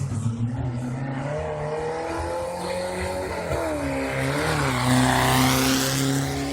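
Off-road race car engine running hard, its pitch dipping and rising again about three and a half seconds in as the driver shifts and comes back on the throttle; the sound swells loudest about five seconds in as a car passes close.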